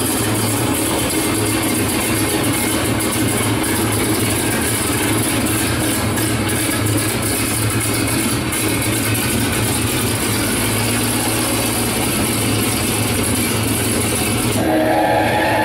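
Propeller aircraft piston engine running steadily with an even low hum, no changes in speed. Music comes in near the end.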